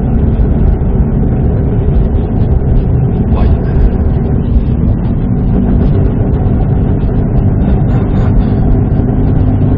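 Subaru WRX STI's EJ20 turbocharged flat-four engine pulling steadily under way, heard inside the cabin together with tyre and road noise, with a gear change partway through.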